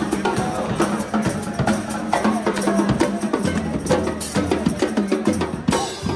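Street band playing upbeat music, a drum kit keeping a busy beat with pitched instruments over it.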